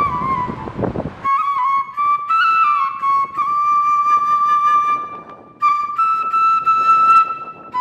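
Background music: a solo flute melody of held notes stepping up and down, with a brief break about five and a half seconds in.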